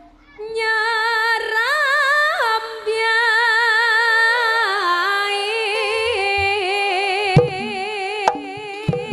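A Javanese female singer (sinden) sings one long, slow unaccompanied vocal line through a microphone and PA, sliding between long held notes with heavy vibrato. Drum strokes come in about seven seconds in.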